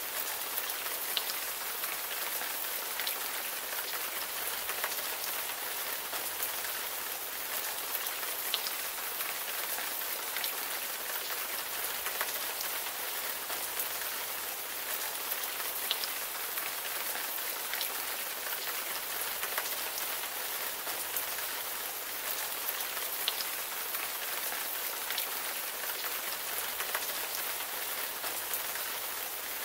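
Steady rain falling on a surface, an even hiss with an occasional sharper drop every few seconds.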